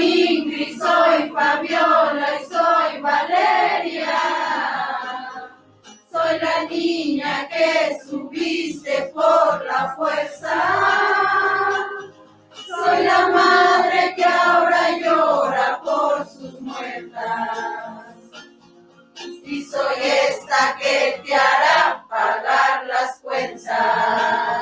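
A group of voices singing a Spanish-language protest song together, in four long phrases with short breaths between them.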